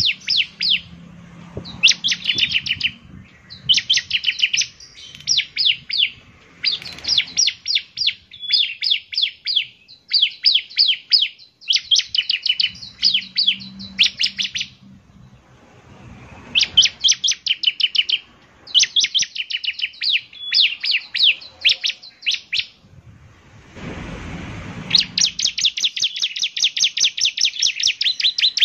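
Bar-winged prinia (ciblek semi) singing: repeated quick phrases of high, rapid chattering notes, each a second or two long with short pauses between them. Near the end the notes run into one long unbroken trill.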